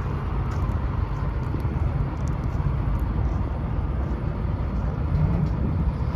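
Doosan 255LC-V hydraulic excavator's diesel engine running steadily, a low even rumble.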